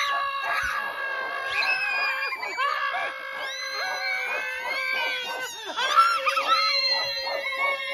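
Several people howling and shrieking together in long held notes, breaking into laughter partway through.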